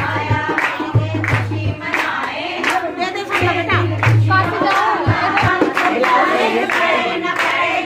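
A group of women singing a kirtan together, with hand clapping keeping the beat.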